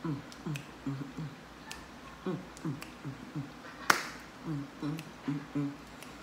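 A woman humming a low tune in short notes at a steady rhythm, many of them falling, while snapping her fingers. One sharp snap about four seconds in is the loudest sound.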